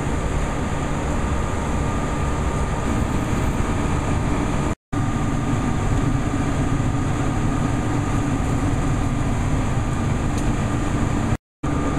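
Steady engine rumble and hum of an idling diesel motor coach. It cuts out abruptly twice for a moment, about five seconds in and near the end.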